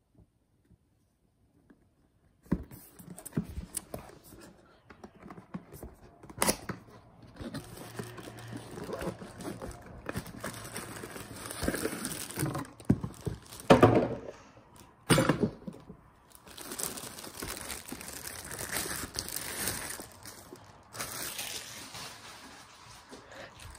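Unboxing by hand: a cardboard box handled and opened, and plastic wrapping crinkling and tearing as a hard-shell travel case is pulled out. It starts a couple of seconds in, with a few sharp knocks among the rustling.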